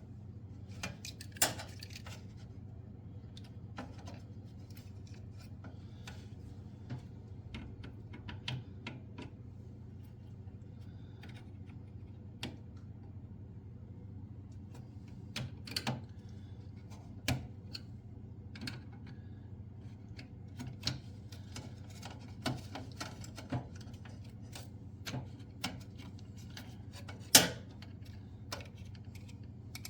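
Scattered small clicks and light metallic taps from handling a stove burner control switch and its wire connectors, over a steady low hum. The sharpest click comes near the end.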